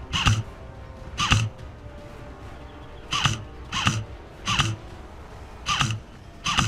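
Background music: a track of short, punchy hits landing on a steady beat about two-thirds of a second apart, with some beats left out.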